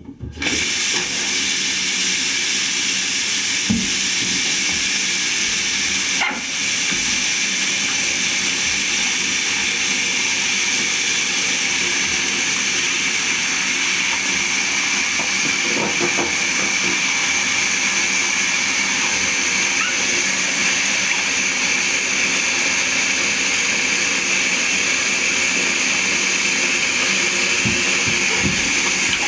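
Shower running: a steady hiss of water spraying onto leather work boots and the bathtub floor, starting about half a second in.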